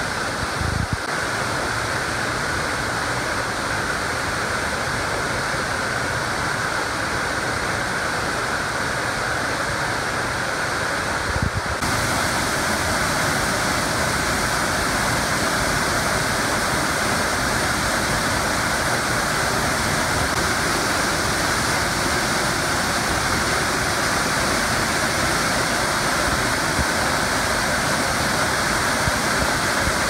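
Waterfall plunging onto rock and a pool: a steady, loud rush of falling and splashing water. About twelve seconds in the rush turns brighter and fuller.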